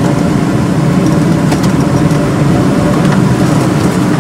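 A vehicle engine running steadily, with a dense, even low rumble.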